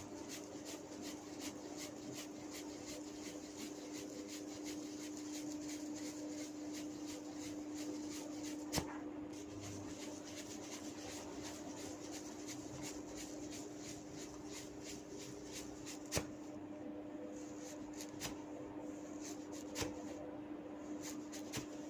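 Hair cracking during a head massage: tufts of hair tugged at the roots in quick succession give a run of small crackling pops, several a second, with three louder snaps along the way. A steady low hum runs underneath.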